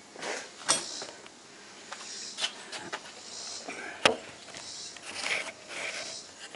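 Camera handling noise as the camera is moved and set down: a few sharp knocks, the loudest about four seconds in, with rustling and hiss between. The engine is not running.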